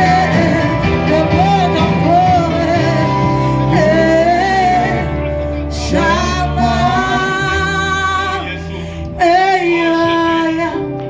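Church worship song: voices singing a melody with held notes over instrumental accompaniment with a steady bass.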